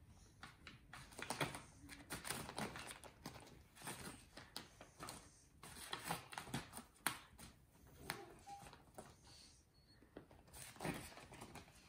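Brown paper bag and newspapers rustling and crinkling in irregular bursts, with small sharp taps, as a cat paws at the bag and drags it.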